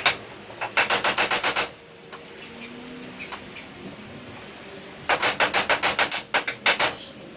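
A hammer driving nails into an overhead wooden rafter brace: two quick runs of ringing blows, about eight a second. The first run lasts about a second near the start, and the second lasts about two seconds from five seconds in.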